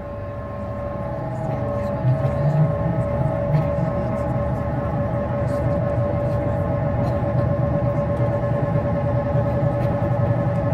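Soundtrack of a light-projection show played over loudspeakers: a steady, siren-like electronic drone held on one tone with overtones. A low rumble comes in about two seconds in and the sound grows louder.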